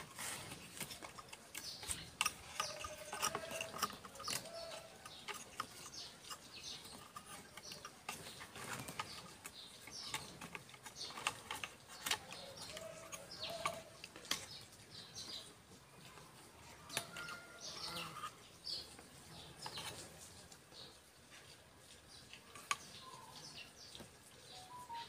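Scattered light clicks and taps from a plastic engine valve cover and its rubber gasket being handled as the gasket is pressed into its groove, with birds chirping in the background.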